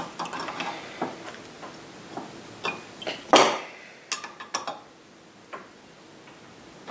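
Hand wrench clinking and clicking on a pair of nuts double-nutted on a new cylinder head stud as the stud is snugged into the cylinder. The metal clicks are scattered, with the loudest about halfway through and a few quick ones right after.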